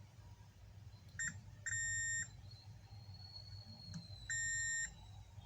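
Multimeter in continuity mode beeping three times at one steady pitch, a short chirp and then two half-second beeps, as the probes touch the board. The beep means continuity, here the short on the laptop motherboard found at the discharging MOSFET.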